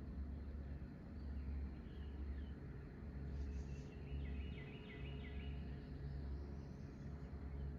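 Birds chirping in quick runs of short falling notes, once about two seconds in and again for about a second midway, over a low rumble that swells and fades.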